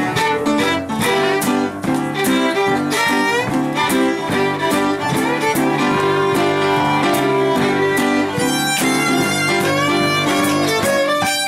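Fiddle playing a fast swing-style tune with acoustic guitar strumming the accompaniment, live.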